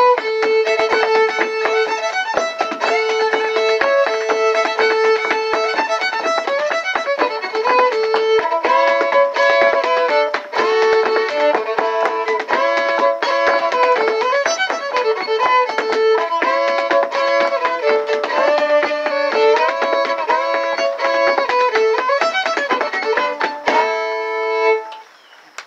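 A fiddle plays a lively dance tune while flatfoot dance steps tap a rhythm with hard shoes on a wooden board. The tune ends about a second before the end on a long held double note, and the playing and tapping stop.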